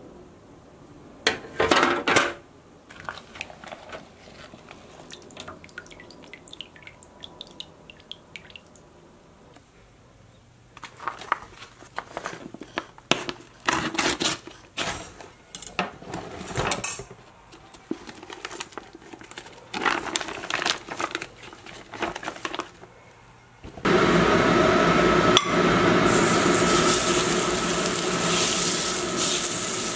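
Plastic vacuum bag rustling with scattered clinks and knocks as the bagged striploin steak is lifted from the sous vide water bath and cut out of its bag. About four-fifths of the way through, the steak goes into a hot cast-iron skillet and sizzles loudly and steadily as it starts to sear.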